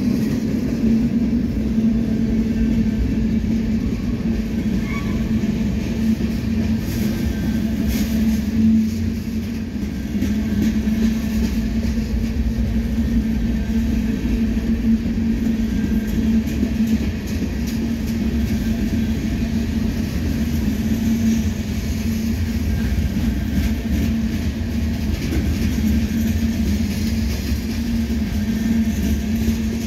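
Slow-moving freight cars of a CSX manifest train, covered hoppers and tank cars, rolling past: a steady rumble of steel wheels on rail with a low steady hum beneath it.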